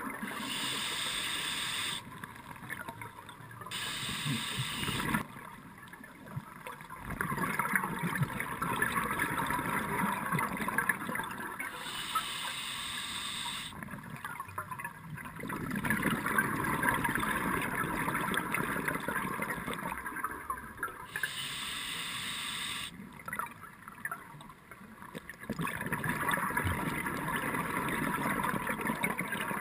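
Scuba diver breathing through a regulator underwater: a short, even hiss for each inhale, then a longer stretch of crackling, gurgling exhaled bubbles, about three full breaths, heard through the camera's underwater housing.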